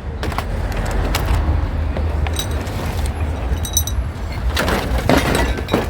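Scattered clicks, knocks and light clinks of scrap being handled, plastic keyboards and other e-waste knocking together, over a steady low rumble. The clatter gets busier near the end.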